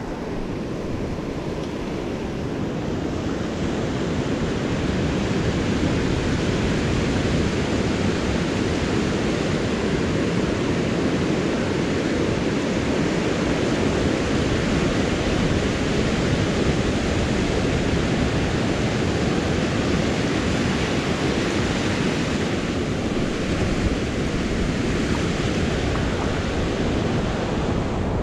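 Steady rush of surf breaking on a beach, mixed with wind buffeting the microphone.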